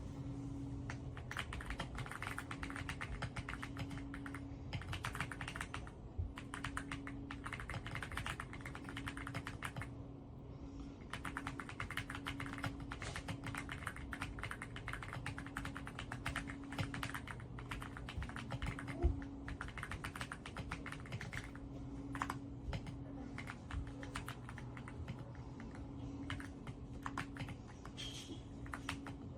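Fast, continuous typing on an EPOMAKER x Aula F75 gasket-mount mechanical keyboard: a dense run of keystrokes, with a short lull about ten seconds in.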